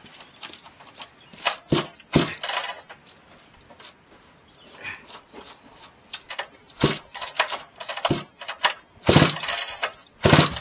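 Vintage Husqvarna chainsaw being pull-started: the recoil starter rasps through repeated short pulls in several bouts, and the engine does not catch. The owner traces the failure to start to a broken flywheel keyway.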